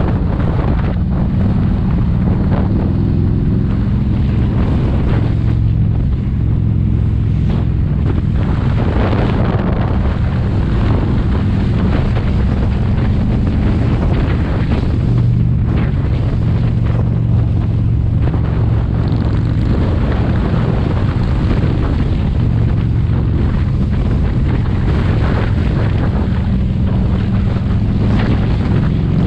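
Wind buffeting the microphone of a camera on a moving motorcycle, over the motorcycle's engine running at cruising speed.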